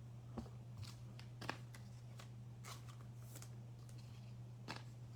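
Basketball trading cards being handled and sorted by hand: a few faint, sharp clicks and light rustles spread irregularly, over a steady low electrical hum.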